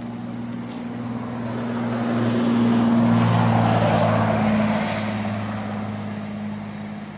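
A motor vehicle driving past: engine and tyre noise swelling to a peak about three seconds in, dropping slightly in pitch as it passes, then fading away.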